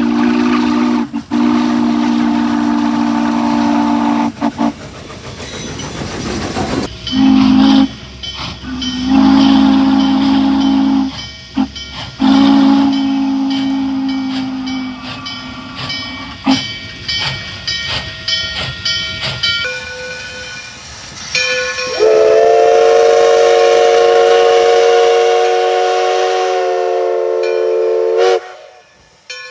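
Steam locomotive chime whistles blowing: a low chord held for several seconds, a burst of hiss, then a run of short and longer blasts. Near the end a higher-pitched chime whistle sounds for about six seconds and cuts off abruptly.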